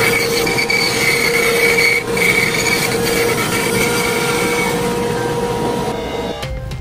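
Floor-standing bandsaw cutting a curve through a thick hardwood panel: a steady high whine from the blade over the rasp of the cut. It fades and changes about six seconds in.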